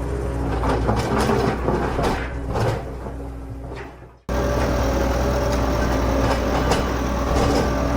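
A motor running steadily with scraping and clattering over it. The sound fades and cuts off abruptly a little past four seconds in, then a steady motor hum starts again.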